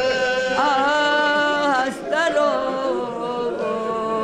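A man's voice chanting a masaib elegy for Imam Hussain in Balti, in long held notes that waver in pitch, with a short break for breath about two seconds in.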